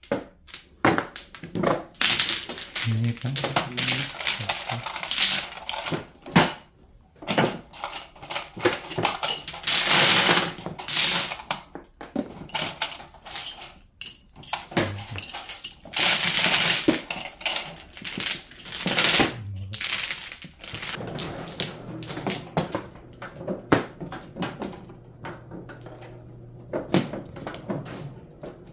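Mahjong tiles clattering and clicking as they are swept together and pushed into the centre of an automatic mahjong table, with long rattling runs of tiles knocking against each other. A low steady hum from the table's mechanism comes in during the second half, under scattered tile clicks.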